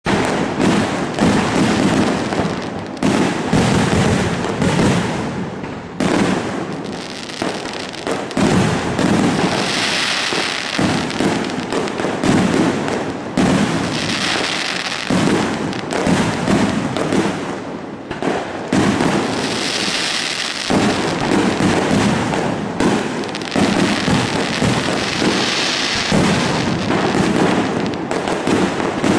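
Fireworks display: a continuous, rapid barrage of aerial shell bursts and bangs, with stretches of high crackling hiss from the bursting stars every few seconds.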